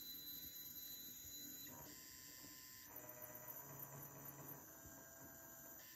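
Faint whine of the stepper motors of a homemade egg-painting machine running under grbl. The tone changes pitch a few times, at about two, three and four and a half seconds in, as the machine moves from one motion to the next.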